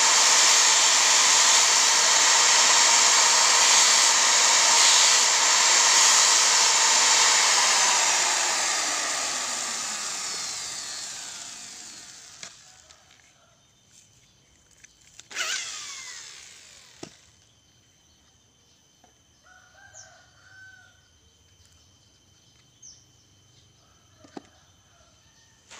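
Corded electric drill spinning a grinding disc with a steady high whine, then let go so the motor winds down, falling in pitch over several seconds. About halfway through the motor is blipped once more and winds down again; after that only a few faint chicken clucks and small bird chirps.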